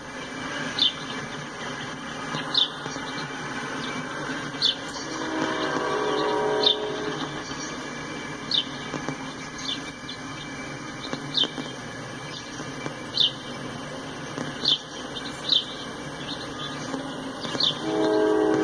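Freight train cars rolling past at a grade crossing: a steady rumble of wheels on the rails, with short high chirps every second or two. A train horn sounds briefly about five seconds in and again near the end.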